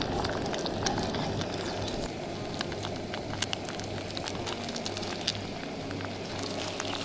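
Beaten eggs sizzling and frying in oil in a pan over a portable gas stove, a steady sizzle with scattered sharp pops and crackles. A low steady hum runs underneath.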